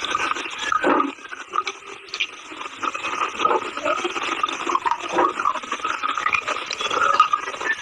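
Close-up crunchy chewing of brittle edible earth (chalk or baked clay): dense, irregular crackling and crunching bites, a little quieter for a second or so near the start.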